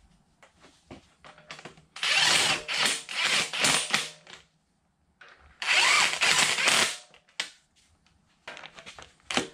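Cordless driver with a socket running nuts down onto the turret locking studs of a Bridgeport milling machine. There are three short runs in quick succession about two seconds in and another near six seconds, with small metal clicks of nuts and washers being handled before and between.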